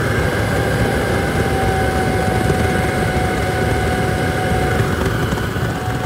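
Oil-fired furnace burner with a 4 gallon-per-hour nozzle, running loud and steady at full power, with a thin steady whine over the rumble. The loudness is the sign of the flame running short of air.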